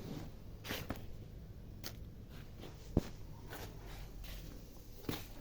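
Scattered light rustles and handling noises of objects being moved about and discarded, with one sharp knock about three seconds in.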